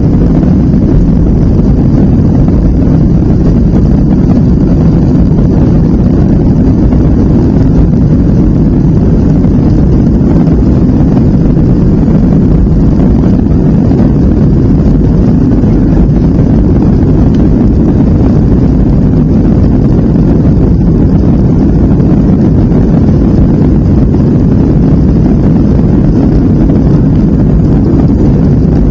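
Boeing 757 jet engines at takeoff power heard from inside the passenger cabin: a loud, steady, low rumble through the end of the takeoff roll, liftoff and the climb.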